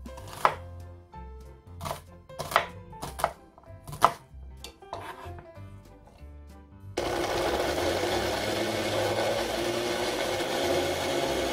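A knife cutting an onion on a wooden cutting board, a handful of sharp knocks. About seven seconds in, a small electric blender starts suddenly and runs steadily, grinding kiwi and onion into a purée.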